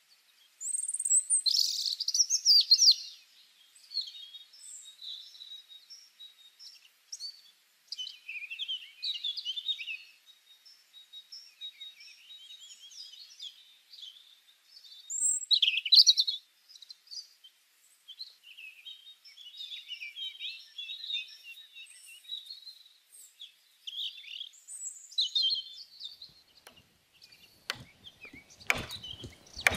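Forest birdsong: many small birds chirping and calling, loudest about two seconds in and again around sixteen seconds. Near the end come a few sharp chops of a machete striking a woody vine.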